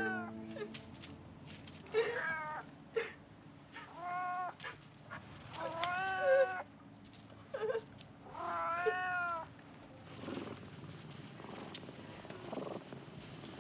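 Calico cat meowing over and over, about seven meows in the first ten seconds, some short and some drawn out, then stopping.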